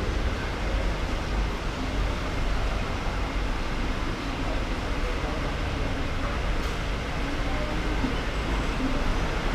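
Steady background noise of an airport terminal walkway, with a constant low traffic rumble and faint voices of people around.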